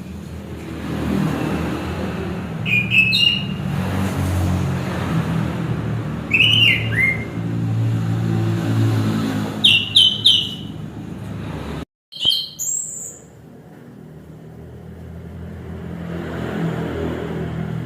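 Orange-headed thrush (anis kembang) giving short chirping, gliding phrases in a few separate bursts, over a steady low hum like traffic or an engine. The sound cuts out briefly near the middle.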